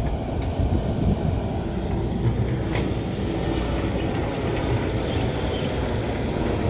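Excavator's diesel engine running steadily in a low rumble, with a few faint knocks about three seconds in.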